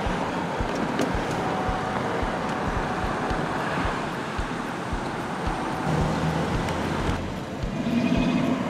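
Road traffic noise from vehicles driving past, with wind thumping on the microphone.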